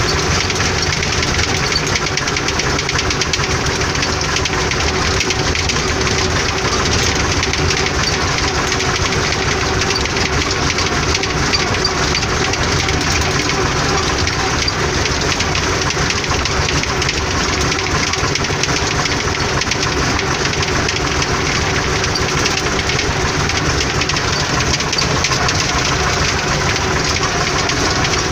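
Tractor engine running steadily as the tractor drives along, heard from inside the cab.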